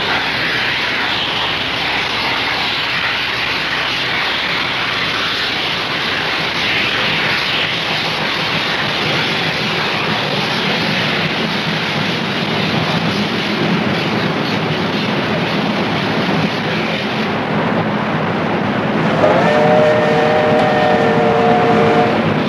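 Steam locomotives of a triple-headed train working past, a steady rushing noise with no clear beat. Near the end a steam whistle sounds one chord of several tones, held for about three seconds.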